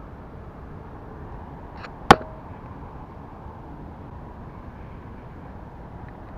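Steady wind noise rumbling on the microphone, with one sharp click about two seconds in.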